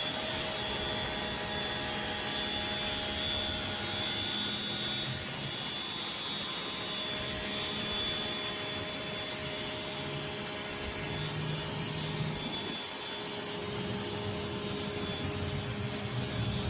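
Westinghouse ePX3500 electric pressure washer running and spraying water: a steady motor and pump whine over the hiss of the spray, starting right at the outset and holding even throughout.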